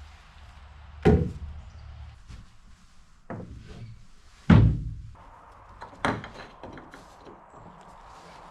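A few separate wooden knocks and thuds from workshop handling of plywood pieces during boat building, the loudest about halfway through. A faint steady hum joins about five seconds in.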